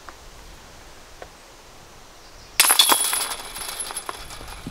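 A disc golf disc striking the chains of a metal basket about two and a half seconds in: a sudden metallic jangle and rattle of chains with a high ringing, fading out over about two seconds.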